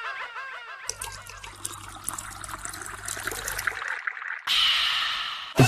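Stream of liquid trickling and splashing, the sound of a man urinating against a wall. It is loudest from about four and a half seconds in and stops abruptly near the end. A run of quick repeated chirps fades out in the first second.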